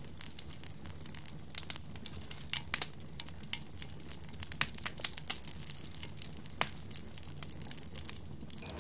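Wood fire in a cooking stove crackling, with irregular sharp pops over a low steady hum.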